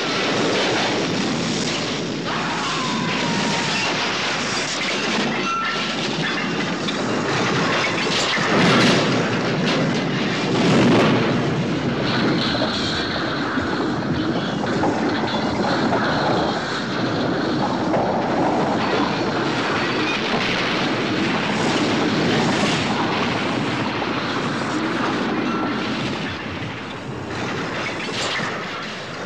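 Railroad cars crashing and tumbling down a steep hillside: a continuous rumble with many heavy impacts, loudest about nine and eleven seconds in, dying away near the end.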